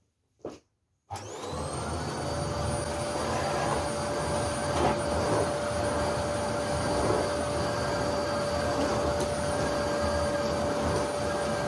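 Vacuum cleaner switched on about a second in, its motor spinning up with a brief rising whine, then running steadily.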